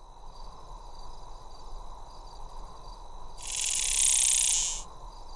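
Soundtrack ambience: a faint high-pitched pulsing chirp over a low steady hiss, with a loud high-pitched buzzing hiss starting about three and a half seconds in and lasting about a second and a half.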